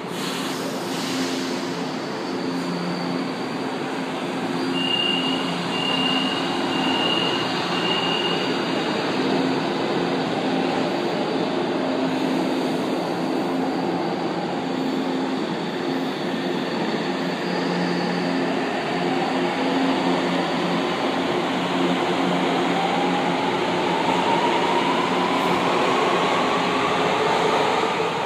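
São Paulo Metro trains running through the station with a steady rumble and low electric hum. About five seconds in come four short high beeps, and over the last several seconds an electric motor whine rises in pitch as a train gathers speed.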